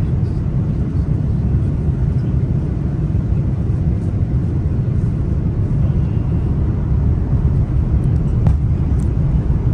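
Steady low rumble inside the cabin of an Airbus A330-300 airliner during its descent: engine and airflow noise heard from a window seat.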